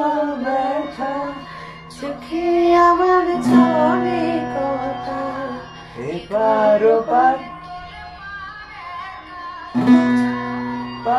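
Acoustic guitar accompanying a voice singing a slow Bengali song. Sung phrases come near the start, from about two to four seconds in, around six to seven seconds, and again near the end, with the guitar ringing on between them.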